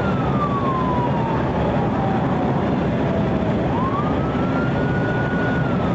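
Police siren on a slow wail: its pitch falls for about three seconds, swings back up about three and a half seconds in, holds, and starts to fall again near the end, over the steady road and engine noise of a moving car.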